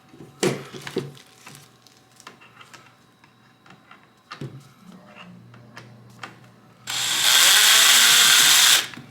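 A power drill driving a screw into a pre-drilled hole in a wooden shelf piece: one loud run of about two seconds near the end, its pitch rising as the motor speeds up. It is preceded by light knocks and clicks of the pieces being handled.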